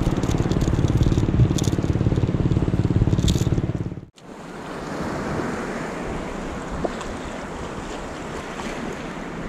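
Surf washing on the shore with wind buffeting the microphone, loud and rumbling at first. About four seconds in it cuts out abruptly, then returns as a quieter steady wash of waves.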